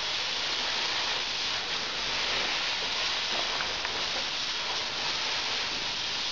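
Cutting torch slicing through steel: a steady hiss with a few faint crackles as sparks shower off the cut.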